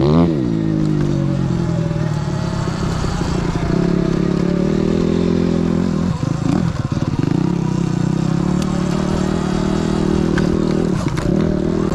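Sur Ron electric dirt bike under way on an off-road trail, its motor and drivetrain running steadily with some clatter. The pitch sweeps down at the start and breaks off briefly about six seconds in and again near the end as the throttle eases.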